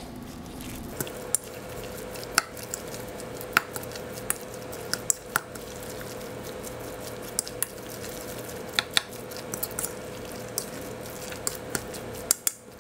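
A utensil stirring and mashing a thick, wet canned-salmon patty mixture in a bowl, with irregular clicks and taps of the utensil against the bowl.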